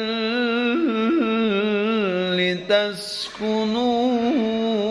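Melodic Qur'anic recitation (tilawah): one voice draws out a long, ornamented note with wavering melisma. About three seconds in there is a quick intake of breath, and then the voice carries on with another held note.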